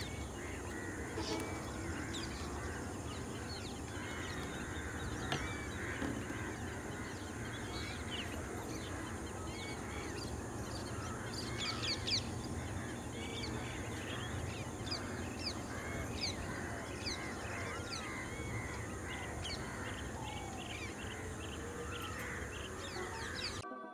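A dense chorus of wild birds calling, many short chirps and whistles overlapping throughout, over a steady low outdoor rumble. It cuts off suddenly just before the end.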